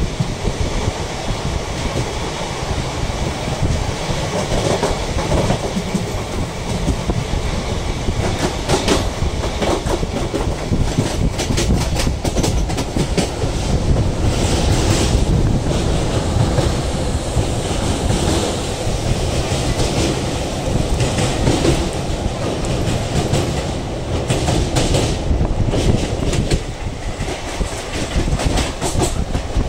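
Train running, heard from on board: a steady rumble with the clickety-clack of wheels over rail joints, and bursts of rapid clicking partway through.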